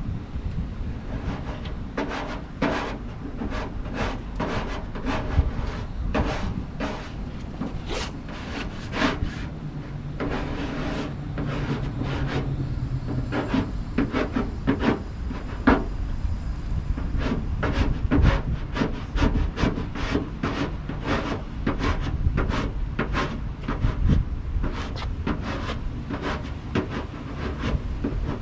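Vinyl wrap film being worked onto a truck body: a continuous run of irregular rubbing, scraping and crackling strokes over a low rumble.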